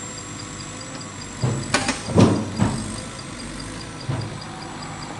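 Wooden logs knock and thud against each other several times, in a cluster between about one and a half and three seconds in and once more about four seconds in, as rubberwood logs are handled onto a loaded truck. A Yanmar ViO55 mini excavator's diesel engine runs steadily underneath.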